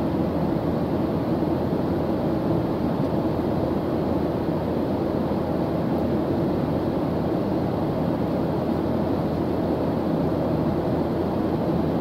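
Steady jet airliner cabin noise at cruise altitude: an even, deep rushing hum that does not change.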